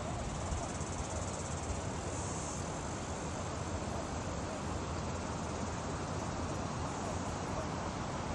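Steady rushing noise of a waterfall plunging into a pool, with a thin high insect buzz above it.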